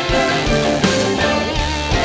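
Rock band playing live: electric guitar and electric bass over a steady drum beat.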